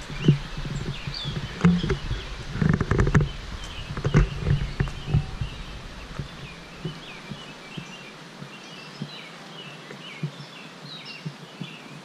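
Birds chirping in the trees, in short scattered calls. For the first half there is a low rumble with bumps on the microphone, which dies away a little past halfway.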